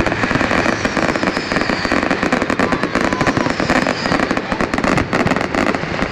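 Fireworks display in full barrage: a continuous, dense rattle of cracks and bangs from bursting shells and comets, overlapping without a pause.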